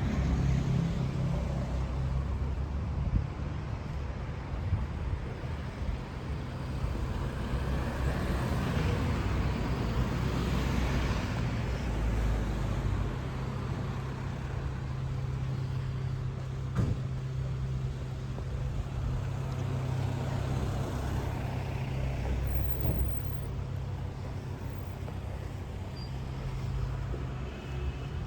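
Street traffic: cars passing on a city street over a steady low rumble, the noise swelling as one goes by about a third of the way in and another about two-thirds of the way in.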